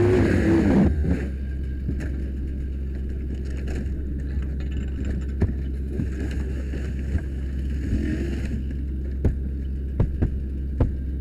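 Steady low mechanical hum, with scattered sharp knocks and clatter from a pike pole prying vinyl siding off an exterior wall, several of them close together near the end.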